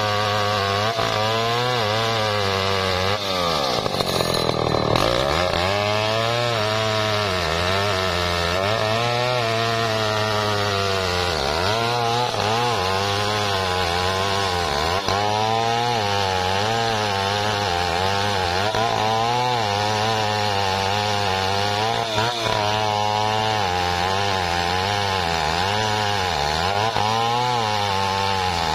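Stihl 070 two-stroke chainsaw running at full throttle while ripping lengthwise through a large log. The engine pitch sags under the load of the cut and recovers again and again, with one deep drop about four seconds in.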